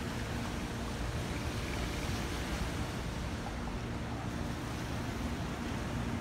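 Ocean surf washing steadily onto the shore, with a faint steady hum underneath.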